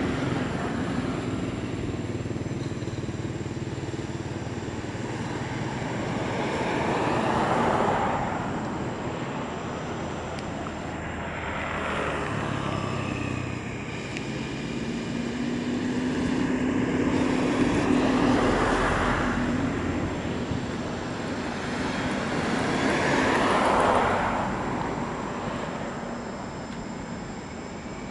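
Motor vehicles, motorbikes among them, passing on a road one after another, each one swelling and fading; about four pass by.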